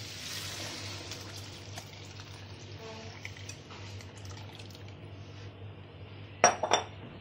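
Strained chicken stock being poured from a glass bowl into a hot wok of fried vegetables and shredded chicken, the liquid splashing and bubbling as it fills the pan. A brief loud clatter about six and a half seconds in.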